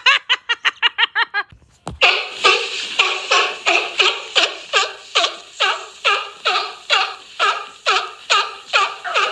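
The tickled seal laughing: a quick run of rapid giggles, then after a brief pause a long string of evenly repeated high 'ha' laughs, about two and a half a second, each dropping in pitch.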